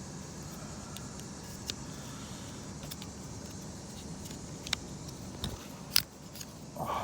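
A few sharp plastic clicks and taps as an inside car door handle assembly is worked loose from the door, the loudest about six seconds in, over a steady low hum.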